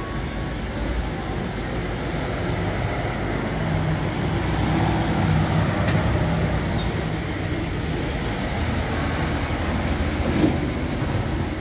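Street traffic rumble with a vehicle engine hum, swelling for a few seconds near the middle.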